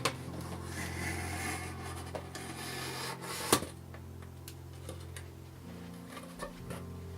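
A blade cutting along foam-core board, a rough scraping with a sharp click about three and a half seconds in.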